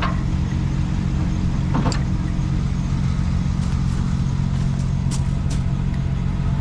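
A vehicle engine idling steadily, with a few short sharp clicks, about two seconds in and twice near five seconds.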